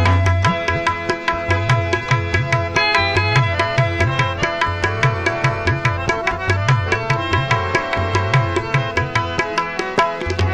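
Background music: a drum-led South Asian instrumental with a steady hand-drum rhythm, low drum strokes bending in pitch under sustained melodic instruments.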